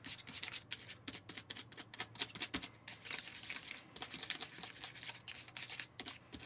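A small tool scraping and tapping in a thin plastic candy-kit tray while strawberry topping is stirred: a quick, irregular run of light clicks and scrapes.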